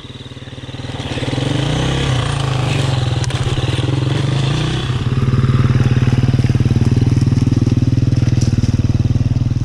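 2019 KTM 350 EXC-F dirt bike's single-cylinder four-stroke engine running under load as the bike is ridden. It picks up about a second in and runs louder and steady from about five seconds in.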